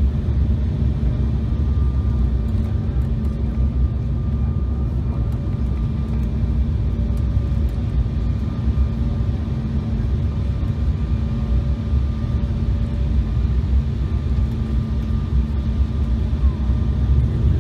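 Steady cabin noise inside an Embraer E-Jet airliner: a low engine and airflow rumble with a few faint, steady tones running through it.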